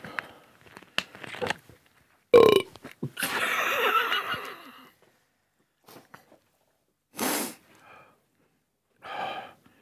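A man burping loudly: a sharp sound about two and a half seconds in, then a drawn-out burp lasting about two seconds, with a couple of shorter sounds later.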